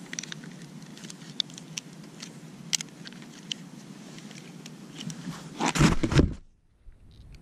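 Small plastic clicks and ticks as the spool, line and cap of a Makita string trimmer head are handled and pulled apart, over a steady low rumble. About six seconds in, a loud brushing rustle as a hand rubs close over the microphone.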